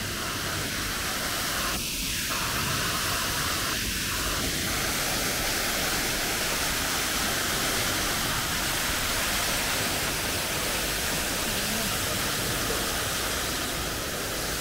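The Cascade du Château, Nice's man-made waterfall on Castle Hill, heard up close as water pours down the rock face, splashing onto boulders and into the pool below. It makes a steady, loud rushing hiss.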